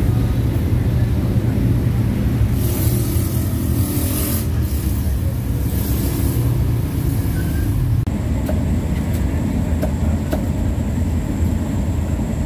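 Road traffic on a city street: a steady low rumble, with the hiss of passing vehicles swelling twice in the first half. A few faint clicks follow in the second half.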